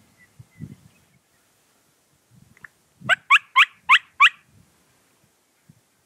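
A quick run of five loud turkey yelps, about four a second, each note sliding upward in pitch, with one softer yelp just before the run.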